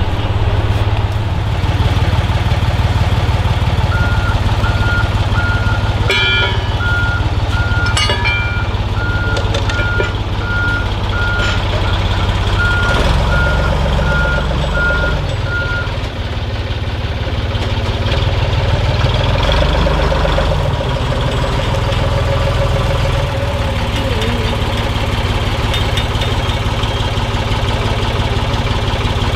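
Boom truck's engine running steadily, with its backup alarm beeping about twice a second from a few seconds in until about halfway through, and two sharp metallic clanks early on in the beeping.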